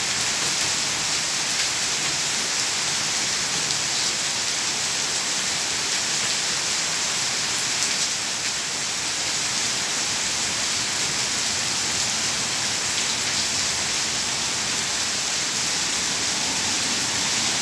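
Heavy rain pouring steadily onto a wet paved street and trees, an even, unbroken hiss.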